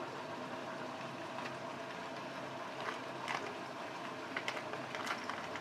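Onion, tomato and spice masala paste frying in oil in a kadai: a steady sizzle with a few sharp pops as the thick paste spits, more of them in the second half.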